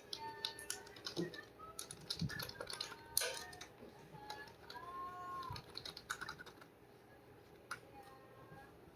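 Keys of a Dell KB216 USB membrane keyboard being pressed: a quick run of clicks for the first few seconds, then scattered single keystrokes.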